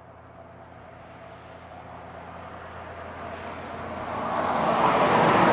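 Heavy truck approaching on the highway, its engine drone and tyre noise building steadily and growing loudest as it passes close by near the end.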